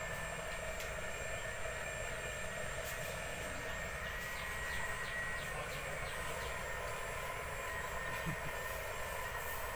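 A motor running steadily, a continuous even drone with a faint high whine. A few faint high chirps come through in the middle.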